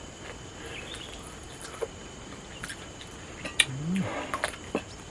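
A person eating: scattered small clicks and smacks of chewing and of fingers and food against a plate. About four seconds in there is one short, low sound that rises in pitch.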